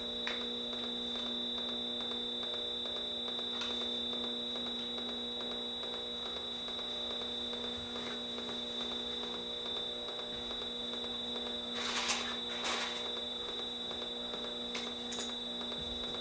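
Steady electrical hum and drone from amplified electronics: several low tones held together with a thin high whine above them. Brief crackling noises come in about twelve seconds in and again near the end.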